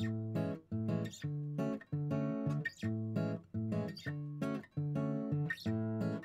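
Background music: an acoustic guitar strummed in a steady rhythm, about two strokes a second.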